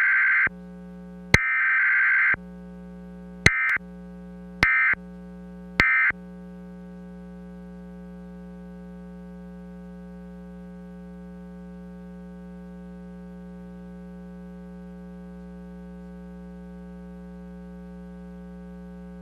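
Emergency Alert System digital data bursts: two harsh, screeching bursts of about a second each, then three short ones, each starting with a click. Under and after them a steady electronic buzzing tone holds on unchanged.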